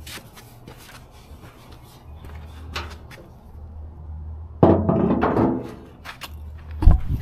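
Knocks and handling noise from work on a car's steel door and fender, with a louder burst of clattering just before five seconds and a sharp, heavy clunk near the end, like a car door shutting. A low steady hum runs underneath from about two seconds in.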